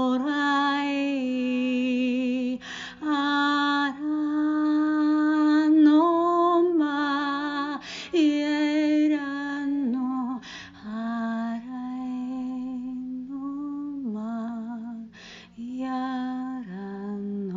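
A woman singing long, wordless held notes with vibrato in slow phrases, pausing briefly for breath several times, over a steady low drone.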